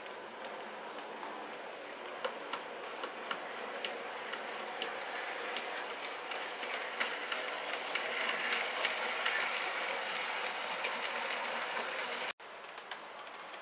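Model train running on track: a Bachmann Class 20 diesel hauling tank wagons, with its motor running and wheels clicking irregularly over the rail joints. It grows louder as the train passes nearest, then cuts off abruptly near the end.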